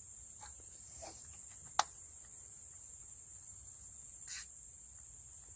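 Steady high-pitched chorus of insects such as crickets, with a single sharp click about two seconds in and a brief rustle-like noise a little after four seconds.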